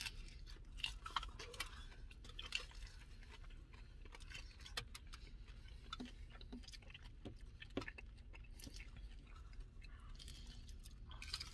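A person biting into and chewing a birria taco: faint, scattered wet mouth clicks and smacks over a steady low hum.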